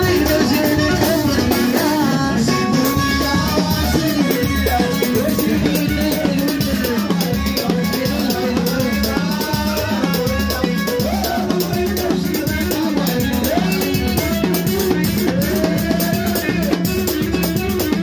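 Moroccan chaabi music: a fast, busy drum and hand-percussion beat with rattles, under a melody line that slides up and down in pitch.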